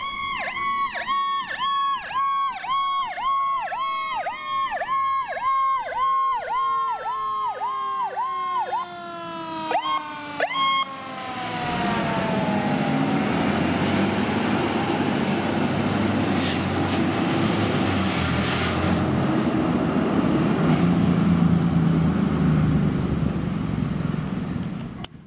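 Fire apparatus responding: an electronic siren pulsing about twice a second, with a second siren tone sliding slowly down in pitch beneath it. About eleven seconds in the sirens give way to the loud, steady rumble of the fire trucks' engines driving past, with a brief sharp hiss partway through.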